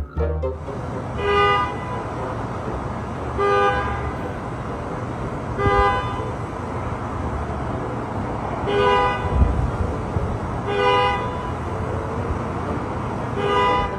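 Car horns of Waymo driverless robotaxis honking: six short honks, evenly spaced about every two seconds, over a steady background rumble.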